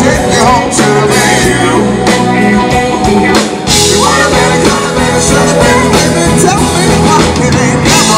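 Live rock band playing loudly through a PA, with electric guitars, bass, keyboard and drums under sung vocals.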